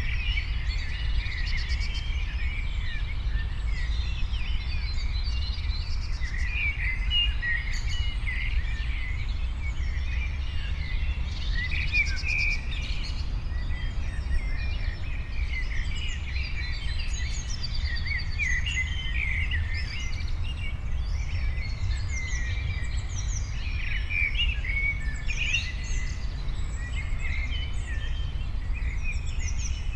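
Many songbirds chirping and twittering at once, a dense, continuous mix of short high calls and trills, over a steady low rumble.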